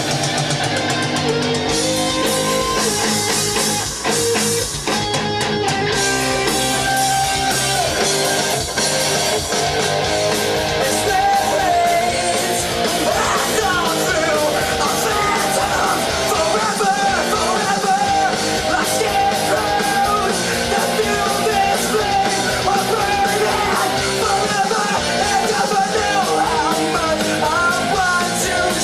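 Rock song with a male lead vocal singing over a full band backing: a studio vocal take. The voice stands out more clearly about a third of the way in.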